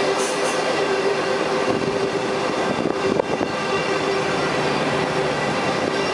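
Passenger coaches of a through train running past at speed: a steady rumble of wheels on rail with a faint steady whine, and a single knock about three seconds in.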